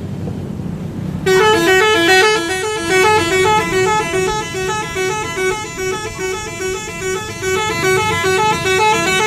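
A bus's 'telolet' musical horn, a set of horns sounding in turn, plays a long, fast run of stepping notes. It starts about a second in over a low engine rumble.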